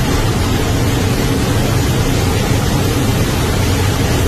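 Loud, steady rush of wind blasting into an airliner cabin through an emergency exit door opened in flight.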